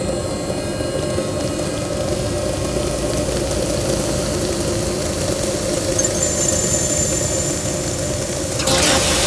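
A steady, dense roar with a droning hum underneath, laid over tornado footage as the sound of the storm; a louder rushing hiss comes in near the end.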